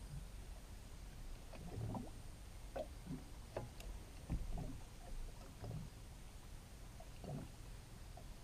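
Small waves lapping and gurgling against a small fishing boat's hull, a few soft irregular slaps over a low steady background.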